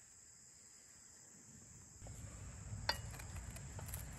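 Faint, steady high chirring of crickets. About halfway in a low outdoor rumble comes in, and near the end a sharp click of metal tongs against the skillet, followed by a few lighter taps.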